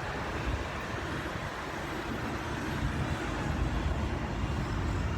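Steady rumble of road traffic, growing a little louder in the second half.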